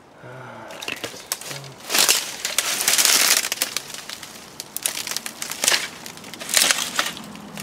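Dry dead plant stalks rustling, crackling and snapping as someone pushes through a dense tangle of them. It comes in several surges with scattered snaps, the loudest about two to three and a half seconds in.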